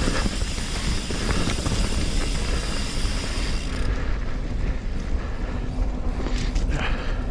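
Commencal Meta HT hardtail mountain bike running fast down a dirt trail: wind buffets the helmet camera's microphone, while tyres and frame rattle over rough ground. A high freehub buzz from coasting stops a little past halfway.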